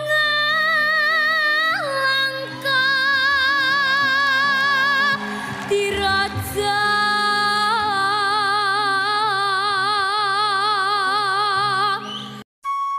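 A young girl singing long held notes with wide vibrato into a microphone, over a musical backing. The song breaks off shortly before the end.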